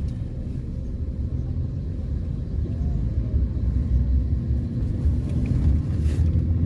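Steady low rumble of a car on the move, road and engine noise heard from inside the vehicle.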